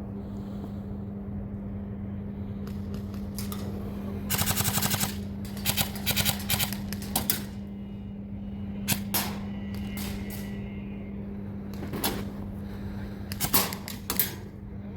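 Airsoft guns firing during play: a rapid full-auto burst about four seconds in, then scattered single shots and short bursts over the following ten seconds, over a steady low hum.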